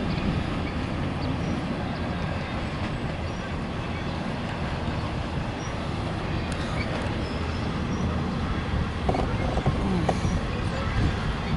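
Norfolk Southern intermodal train's double-stack container cars rolling by on a steel bridge: a steady rumble of wheels on rail.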